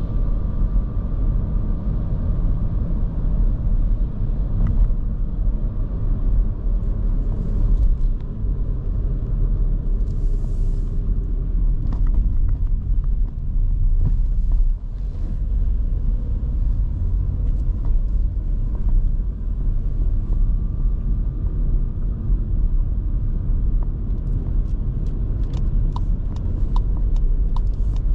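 Steady low rumble of engine and tyre noise from a 2023 Škoda Kamiq with its 1.0 TSI three-cylinder turbo petrol engine, under way. Near the end a light, regular ticking begins, about one and a half ticks a second.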